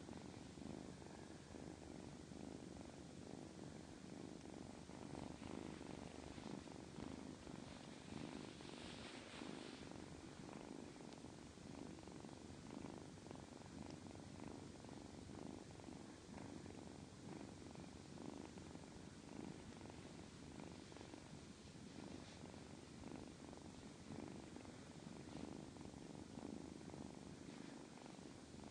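A domestic cat purring faintly and steadily up close while being stroked, a continuous fast-pulsing rumble.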